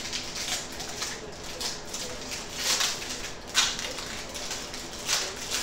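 Foil booster-pack wrappers crinkling and trading cards being handled, in short irregular rustles, the sharpest about three and a half seconds in.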